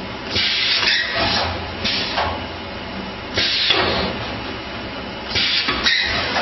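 Paper plate forming machine running: a steady low hum with short hisses of compressed air every second or two as it cycles, with some mechanical knocking.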